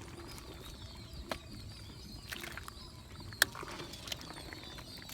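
Outdoor ambience: a thin, wavering high chirring, like birds or insects, with scattered sharp clicks, the loudest about three and a half seconds in.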